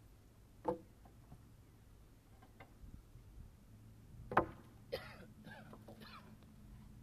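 Wooden logs knocking as they are thrown down onto a log pile: a light knock about a second in and a heavier one a little past the middle.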